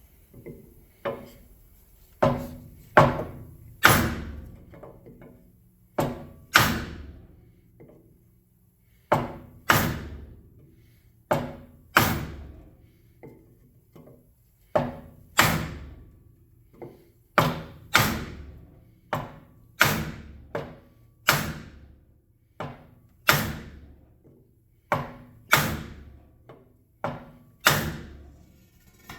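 Repeated hard whacks on a dented motorcycle front wheel rim, roughly one a second with some in quick pairs, each ringing briefly: the rim's bent flat spot being beaten straight.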